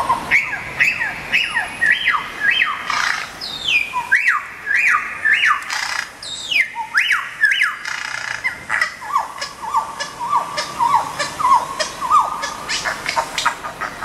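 Bird calls played through handheld portable loudspeakers: a dense, overlapping run of quick squawks and chirps, each sweeping downward in pitch, with the calls dropping to a lower pitch about halfway through.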